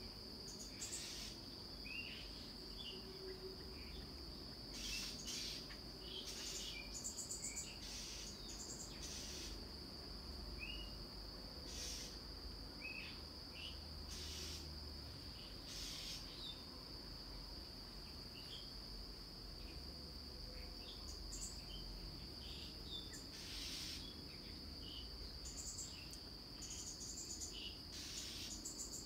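Outdoor ambience: a steady, high-pitched insect drone, with birds chirping briefly many times over it.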